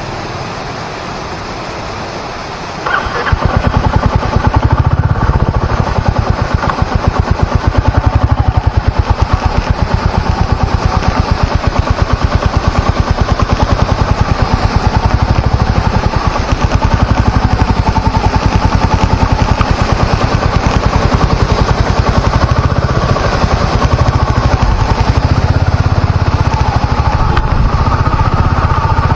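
Royal Enfield 350 single-cylinder motorcycle engine running close by, its exhaust giving a rapid, even train of pulses that comes in loud about three seconds in, after a quieter steady rushing noise.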